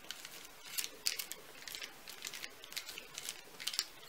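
Baking paper crinkling and rustling faintly in irregular soft ticks as hands press a round of bread dough down into a paper-lined glass dish.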